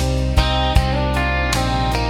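Guitar-backed music with a steady beat, between sung lines of a country-style song.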